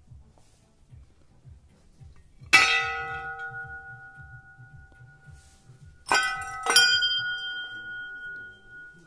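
Hanging brass temple bell struck three times: once, then twice in quick succession about three and a half seconds later. Each strike leaves a ringing tone that slowly fades.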